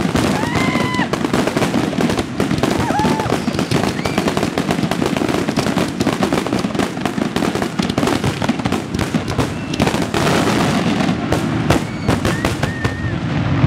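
Aerial fireworks bursting close overhead in a rapid, continuous barrage, the bangs and crackles running together with no pause.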